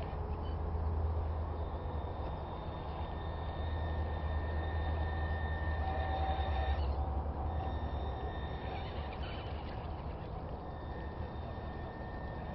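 Radio-controlled scale pickup truck's motor and gears whining as it drives through mud, loudest around six seconds in as it passes close, then fading as it pulls away.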